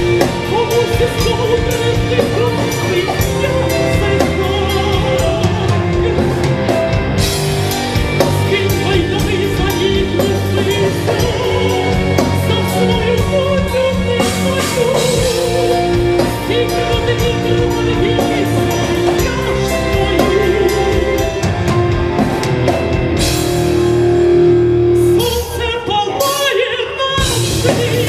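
Rock band playing live: drum kit, amplified instruments and a singing voice. About 25 seconds in the bass and drums briefly drop out, then the full band comes back in.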